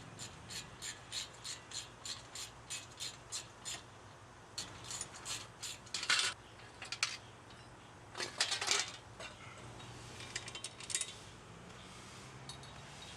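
Metal parts of an old rusty bicycle being worked on by hand: an even metallic clicking about three times a second for the first four seconds, then a few louder, irregular clinks and rattles of metal.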